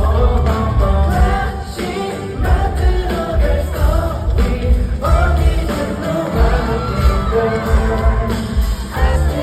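K-pop song sung live over a backing track with a heavy bass beat, played loud through a concert PA.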